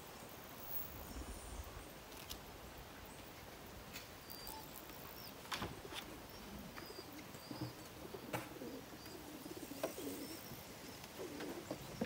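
Pigeons cooing low and repeatedly, mostly in the second half, with a few faint high bird chirps and some sharp clicks.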